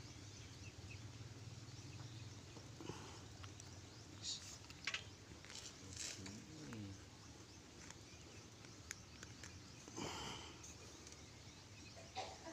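Quiet outdoor background with a few scattered soft rustles and clicks, and a faint short call about six seconds in.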